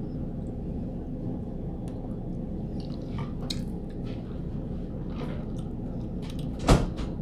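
Close-miked chewing of shrimp and cheesy grits: faint wet mouth clicks and smacks over a steady low background hum, with one louder, sharper sound near the end.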